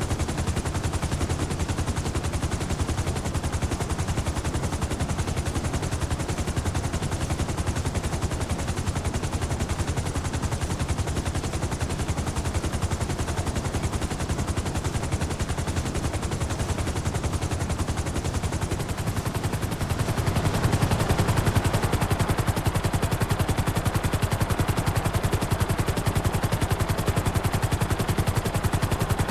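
Helicopter rotor blades chopping in a rapid, even beat over the turbine's running noise. It becomes louder about twenty seconds in.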